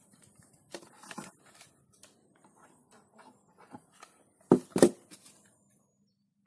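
Dry birch bark pieces rustling and clicking as they are picked from a box and handled against a plastic pot, with two sharp knocks in quick succession about four and a half seconds in.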